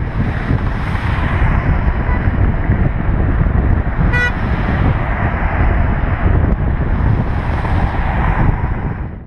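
Heavy wind noise on the microphone of a camera on a fast-moving bicycle, mixed with the rush of freeway traffic. A vehicle horn gives one short toot about four seconds in.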